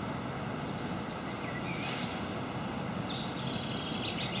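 Newag Impuls electric multiple unit approaching at low speed, a steady low running rumble. Brief high chirping sounds come over it from about two seconds in.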